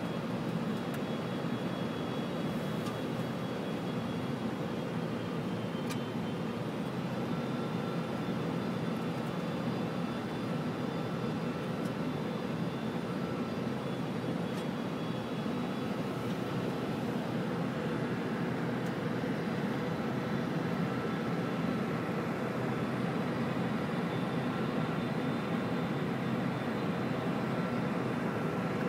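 Steady flight-deck noise of a four-engine Boeing 747-400F on final approach with gear down and flaps 30: airflow and engine sound as an even rush with a low hum. Faint steady high tones sit over it.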